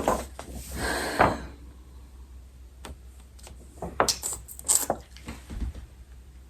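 Handling of a CD album's paper contents: a rustle of paper about a second in, then scattered light clicks and taps.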